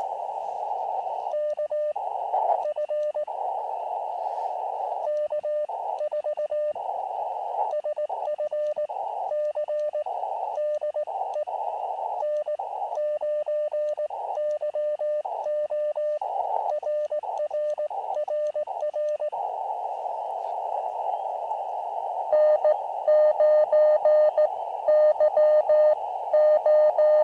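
Elecraft KX2 transceiver's receiver audio on 40 meters: a strong Morse code (CW) signal keyed as a steady tone over narrow-filtered band hiss, stopping about 19 seconds in. About 22 seconds in, a louder, sharper keyed Morse tone starts.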